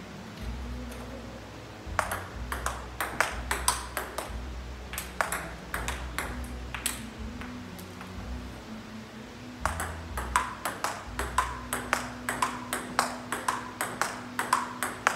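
Table tennis balls being hit back and forth, sharp clicks of ball on paddle and table in quick runs of hits with short pauses between, fastest in the last few seconds.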